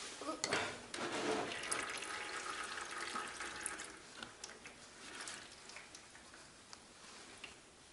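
Engine oil pouring and trickling out of the Zontes U1 125's engine as the filter cover is opened, splashing onto paper towels. It starts about half a second in and tapers to a dribble after about four seconds, with small clicks of paper being handled.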